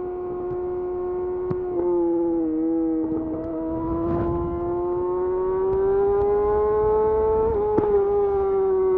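Yamaha YZF R6's inline-four engine through a de-catted Akrapovic slip-on exhaust, running at high, steady revs while riding. The pitch climbs slowly for several seconds, then drops back a little near the end.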